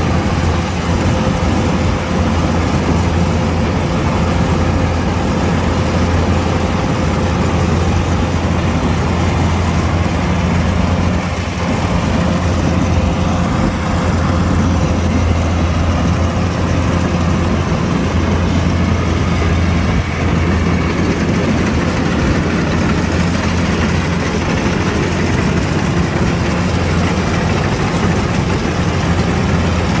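Kubota DC-105X combine harvester's diesel engine running steadily with a low drone.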